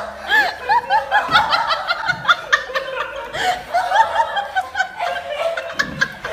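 A person laughing in a rapid run of short, high chuckles, several a second.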